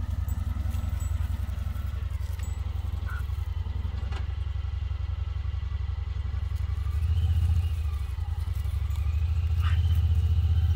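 Honda Pioneer 1000 side-by-side's parallel-twin engine running steadily at low revs, getting a little louder about seven seconds in and again near the end as it starts to move.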